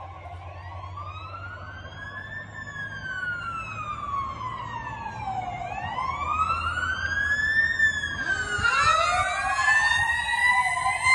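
Fire truck siren on a slow wail, rising and falling about every five seconds and growing louder as it approaches. In the last few seconds a second siren sweep joins, overlapping the first.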